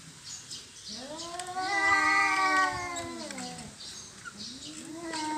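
Domestic cat caterwauling: a long, drawn-out yowl that rises and then sinks in pitch, with a second yowl starting near the end. This is the warning call of a territorial standoff between cats.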